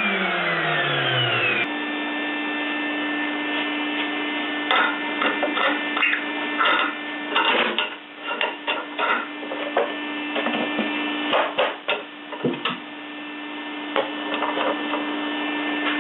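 CNC milling machine's spindle motor winding down, its whine falling steadily in pitch for under two seconds before it breaks off. Then a steady hum with irregular clicks, knocks and scrapes as the clamps and the cut plywood board are handled.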